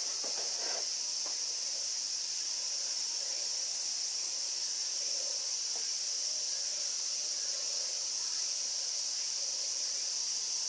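Steady, high-pitched insect drone with a few faint soft knocks in the first second.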